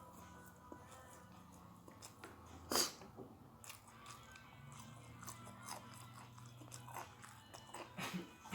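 A person chewing and crunching food close to the microphone, with scattered small crunches and one louder crunch about three seconds in.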